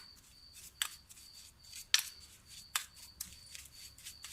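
A metal spoon clicking against a bowl as a heaping spoonful of granulated sugar goes in: three sharp clicks about a second apart, the middle one loudest, with a few lighter taps.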